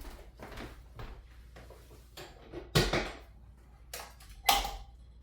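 Sharp knocks and thuds of a hands-on chiropractic adjustment on a treatment table: a loud double thump a little past halfway and another sharp one about a second and a half later, with light handling noises before them.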